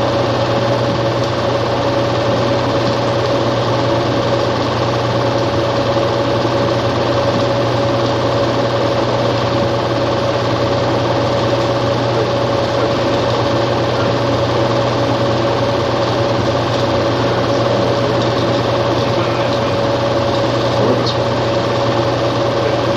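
A small machine running steadily: a constant whirring clatter with a steady hum that does not change.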